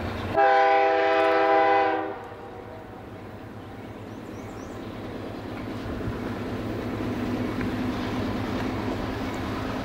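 Air horn of a CN freight train's lead diesel locomotive sounding one chord-like blast of about a second and a half near the start. The rumble of the approaching locomotives (an EMD SD75i and a GE Dash 9-44CWL) then grows steadily louder.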